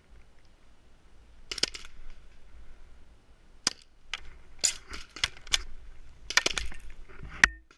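Tiberius Arms paintball pistol firing single shots: a string of sharp pops at irregular spacing, a few in quick clusters, the loudest near the end.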